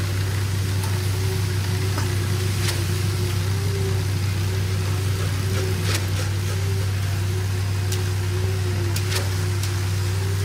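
Concrete pump truck's engine running steadily with a low drone and a faint wavering whine above it. A few sharp knocks from shovels and rakes working the wet concrete over the rebar.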